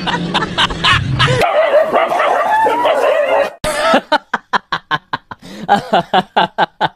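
A dog yelping and yipping: a wavering whine, then from about halfway through a quick run of short yips, about four or five a second.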